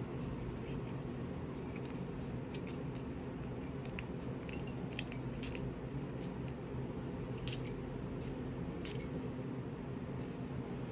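Scattered small clicks and taps of a perfume box and bottle being handled, a few sharper ones about halfway through and near the end, over a steady low hum.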